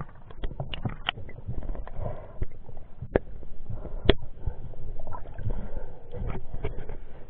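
Muffled underwater sound through an action camera's waterproof housing: low rumbling water movement with scattered sharp clicks.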